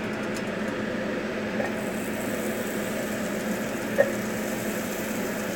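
Butter sizzling as it melts in a hot frying pan, the sizzle filling in from under two seconds in, over a steady low hum. A light tap about four seconds in as another pat of butter goes into the pan.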